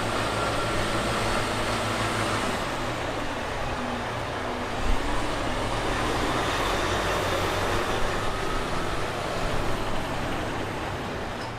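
Heavy machinery's diesel engine running steadily, with a dense mechanical noise over a low engine drone; the sound shifts slightly about two and a half seconds in, and there is a short low thump near five seconds.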